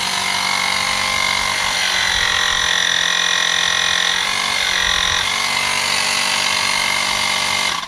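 Cordless rechargeable mini air compressor (tire inflator) running after being switched on with its power button: a steady motor-and-pump whine with slight shifts in pitch now and then. It cuts off abruptly shortly before the end when switched off.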